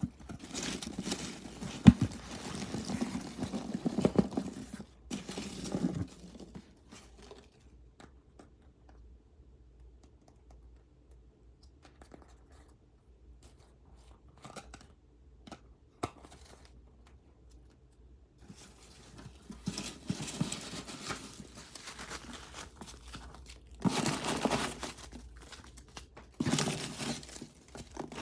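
Packaging being torn open and crinkled by hand, in bursts of rustling and tearing with a lull in the middle and a few sharp clicks, including one loud click about two seconds in.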